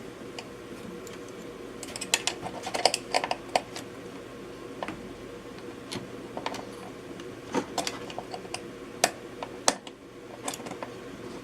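Small plastic clicks and taps of wiring connectors and wires being handled and worked on a fischertechnik model: a quick cluster about two seconds in, then scattered single clicks, over a faint steady hum.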